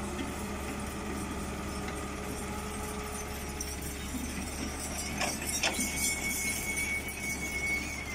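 Volvo wheeled excavator's diesel engine running steadily at about 1200 rpm while the machine digs and swings a loaded bucket. Two sharp knocks come about five seconds in, and a thin high whine joins about a second later.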